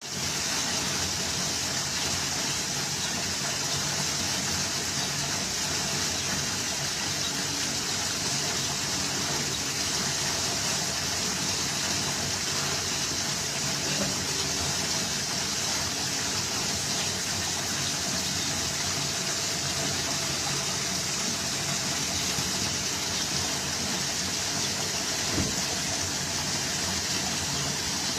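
Garden waterfall fountain: water falling and splashing in a steady, unbroken rush.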